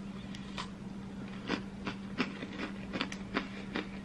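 Chewing a Cadbury Crunchie bar: short crisp crunches of its honeycomb toffee centre, about two or three a second, over a steady low hum.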